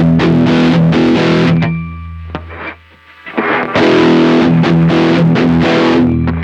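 Distorted electric guitar played through a Marshall MG102CFX amplifier, taken straight from the amp into a phone through an iRig rather than by a microphone. Two loud chord passages with a short gap between, each ringing out as it stops.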